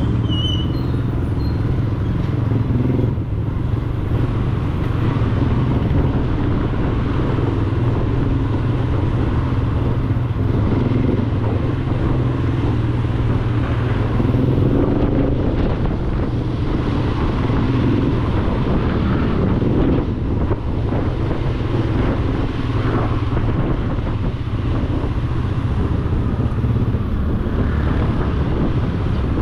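Motorcycle engine running at low speed, heard from the rider's seat, with a steady low drone that shifts a little as the throttle changes.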